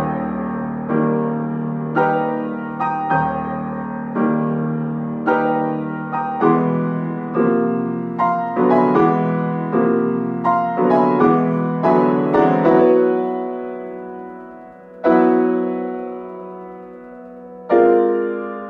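Solo Steinway grand piano playing: chords struck about once a second, quickening to about two a second in the middle, then slowing so each chord rings out and fades, with two last chords near the end, each left to ring.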